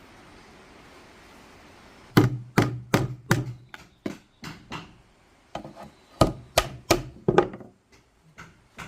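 Wood being struck repeatedly with a tool, sharp knocks at about three a second: a run of hard blows starting about two seconds in, lighter ones after, then a second run of hard blows, with one last knock near the end.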